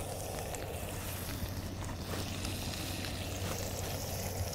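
Meat sizzling in a cast iron skillet on a propane camp stove, steady throughout, with a constant low hum underneath and a few light clicks.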